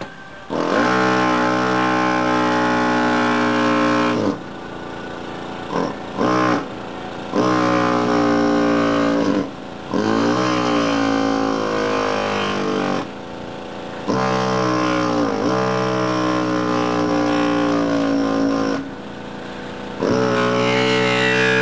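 Gison GPW-4500 pneumatic air hammer with a chisel bit chipping ceramic tiles, run in bursts of a few seconds with short pauses between; its rapid blows merge into a buzzing drone that sags a little in pitch during each burst.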